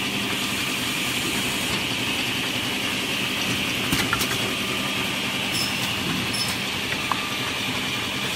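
Holztek six-function automatic edge banding machine running steadily, with a constant motor hum under a high whine. A few sharp clicks or knocks come about four seconds in and again near seven seconds.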